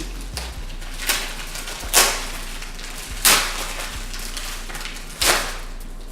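Packaging being handled and torn open: four sharp rustling rips, the middle two loudest, over a steady low hum.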